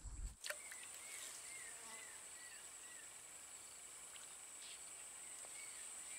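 Faint swamp ambience: a steady high-pitched insect drone, with a bird's short arched whistles repeated about two a second, a run of them shortly after the start and a few more near the end. One click about half a second in.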